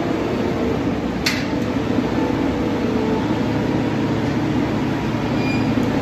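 Feed mixer wagon running as it drives along the feed alley and discharges feed: a steady mechanical rumble and hum, with one sharp click a little over a second in.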